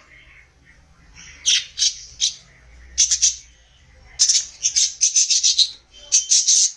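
Budgerigars chirping and squawking in short, harsh bursts, the calls coming in quick clusters and running together in a rapid string in the second half.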